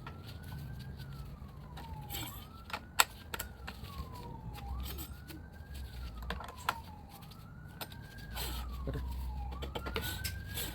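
A wailing siren rising and falling in pitch, about one cycle every two and a half seconds, with sharp clicks and knocks from hand work on the scooter, the loudest a single knock about three seconds in.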